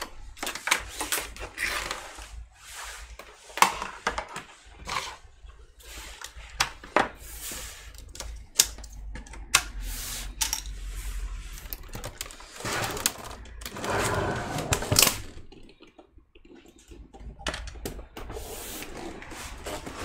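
Irregular clicks, knocks and rustling from cables being unplugged and an all-in-one PC being handled, with a longer rustle about 13 seconds in.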